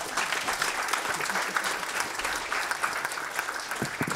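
An audience applauding: many people clapping together in a steady, dense patter that holds through the whole stretch.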